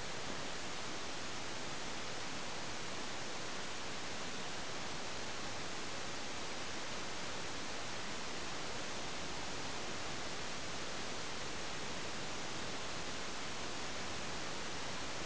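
Steady, even hiss with no other sound: the noise floor of a small onboard camera's recording.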